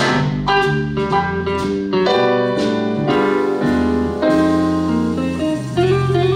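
Big band playing an instrumental piece, with piano prominent over sustained horn chords and a moving bass line.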